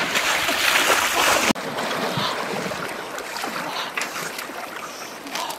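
Shallow stream water splashing and sloshing as a person wades and pushes a large metal basin through it. Loud for about a second and a half, then it cuts off abruptly to a quieter, steady wash of running water.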